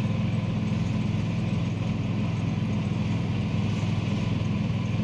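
Tuk-tuk (auto-rickshaw) engine running steadily, with an even low drone and no revving.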